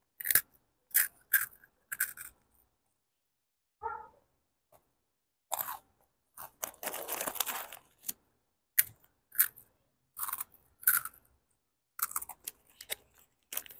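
A child biting and chewing a crunchy breadstick snack. The crunches come in short bursts with pauses between them, thickest about halfway through.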